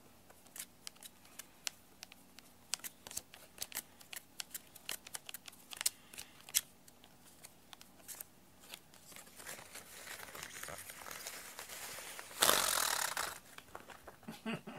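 Rubber-band-powered paper butterfly toy being wound by hand: a run of small clicks and paper crinkles, then rustling, and near the end a loud flapping whirr lasting about a second as the wound rubber band lets go and the paper wings beat.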